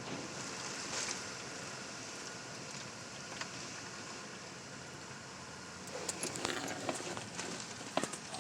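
Hurricane wind and rain making a steady hiss, with a cluster of sharp clicks and taps from about six seconds in.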